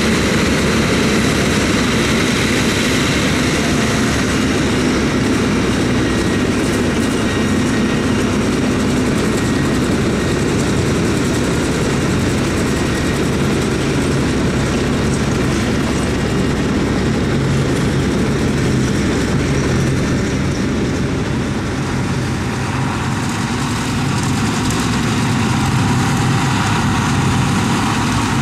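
Tractors and a trailed forage harvester running steadily under load. The harvester picks up wilted grass from the swath, chops it and blows it into the silage trailer running alongside. The engine hum sits low under a steady rushing of the cutting and blowing.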